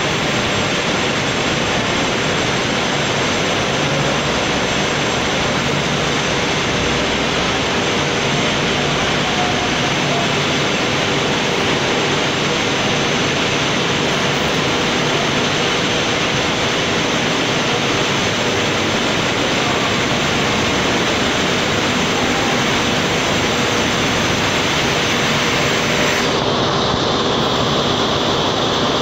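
Steady, loud mechanical roar of a wood-chip biomass burner plant running, with its chip conveyor and fans working. The noise changes character slightly near the end.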